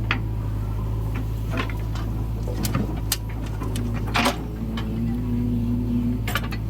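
Heavy diesel machinery running steadily with a low hum, with scattered sharp knocks and clicks, the loudest cluster about four seconds in.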